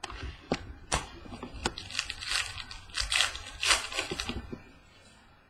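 Trading cards and their pack wrapper being handled, crinkling and rustling, with a few sharp clicks in the first two seconds from a hard plastic card case being handled and set down.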